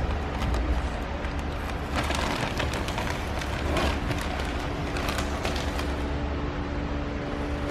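Crackling and rustling of vinyl decal film and its tape being peeled and handled, heard as scattered crisp clicks, busiest a couple of seconds in, over a steady low rumble.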